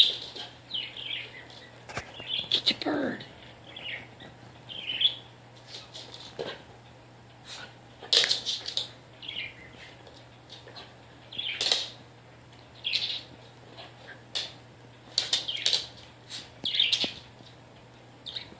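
Budgerigar chirping and chattering in short bursts every second or so, some calls gliding in pitch.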